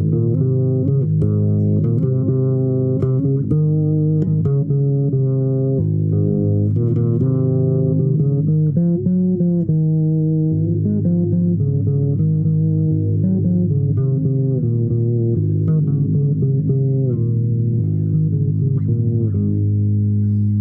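Instrumental music improvised on a low-pitched string instrument, a slow line of sustained notes moving from pitch to pitch.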